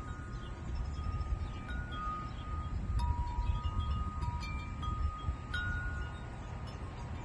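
Wind chimes ringing: a few tubes strike every second or so and their notes ring on and overlap. A steady low rumble runs underneath.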